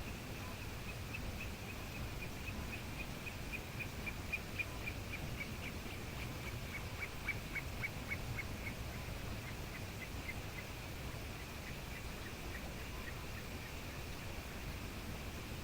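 A bird calling a long, steady run of short repeated notes, about three a second, the pitch dipping slightly in the middle of the series, over a steady low rumble of background noise.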